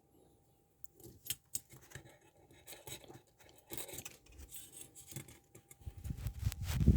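Small metal clicks and scrapes as a shim is worked into a Yuil handcuff's locking mechanism, trying to slip past the ratchet where the tolerance is tight. Louder rubbing and knocks from handling come near the end.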